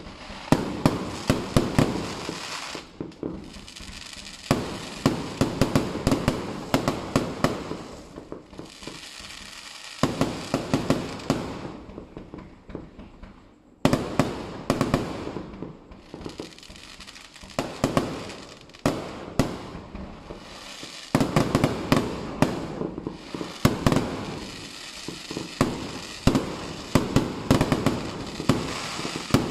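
Aerial fireworks bursting overhead: rapid sharp bangs and crackling that come in flurries, with a few brief lulls between.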